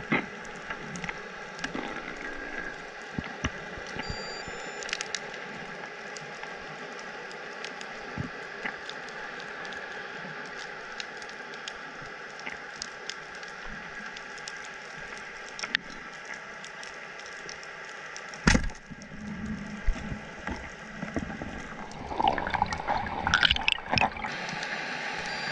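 Underwater ambience heard through a camera's waterproof housing: a steady muffled hiss with scattered faint clicks, one sharp knock about eighteen seconds in, and a louder stretch of rushing, gurgling water noise near the end.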